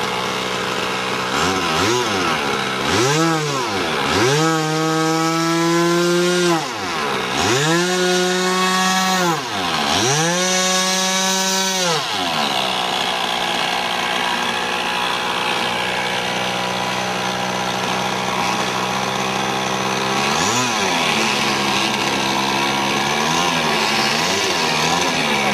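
Skylark 61 RC model airplane's engine being revved up and down several times, each run-up a rising then falling whine, with the plane held on the ground. After that it settles to a steady lower speed, with a few short blips of throttle near the end.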